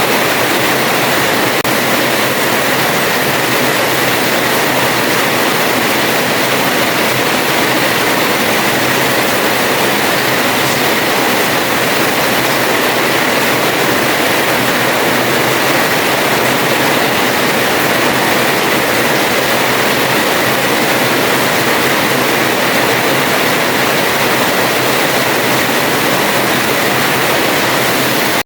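Heavy rain falling in a steady downpour, a dense even hiss with no letting up.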